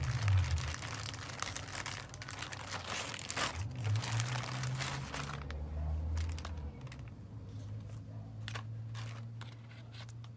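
Plastic courier mailer pouch crinkling and rustling as it is opened and handled, dense and continuous at first, then thinning to separate lighter rustles and ticks from about halfway through.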